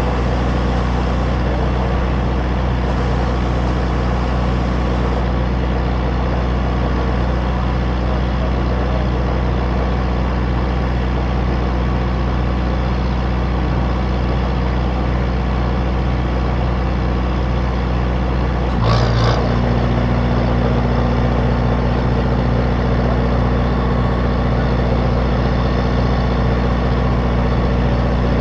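Ice cream truck idling, a steady low engine hum. About two-thirds of the way in comes a brief rattling noise, after which the hum runs a little louder and fuller.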